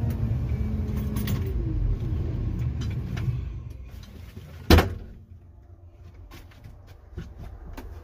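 Tigercat 822 feller buncher's diesel engine heard from inside the cab, its pitch falling as it winds down and fades away. About halfway through comes a single loud clack of the cab door latch opening, followed by faint clicks and rustling.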